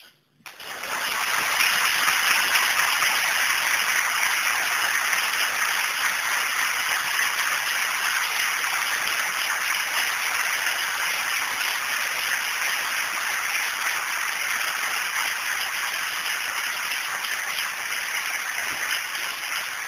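Audience applauding. The applause starts suddenly about half a second in, holds steady and fades a little toward the end.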